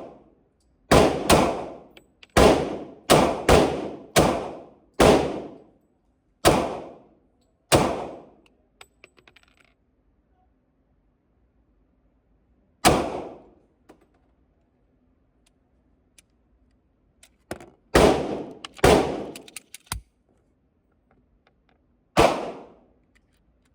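.40-calibre handgun being mag dumped: about a dozen shots in quick succession over the first eight seconds, then single shots and a short cluster of four or five with pauses between.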